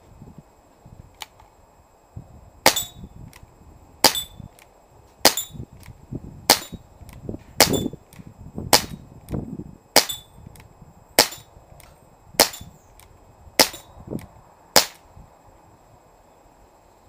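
Umarex Smith & Wesson 586 CO2 pellet revolver firing a quick string of about ten sharp shots, a little over a second apart, with fainter ticks between them.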